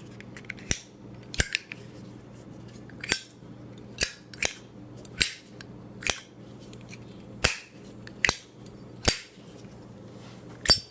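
Brand-new black matte Zippo lighter's hinged lid flipped open and snapped shut over and over: about a dozen sharp metallic clicks, spaced half a second to a second apart, some in quick pairs.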